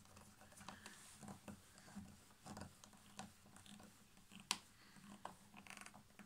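Faint clicks and light scraping of a small screwdriver turning screws into an access point's circuit board, with one sharper click about four and a half seconds in.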